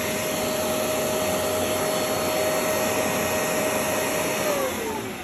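Hoover Clean Slate portable spot cleaner's suction motor running steadily with a whine, then switched off near the end, its pitch falling as it spins down.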